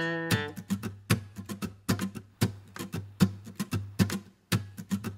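Background music on acoustic guitar: a held chord at the start gives way to a quick, steady picked rhythm.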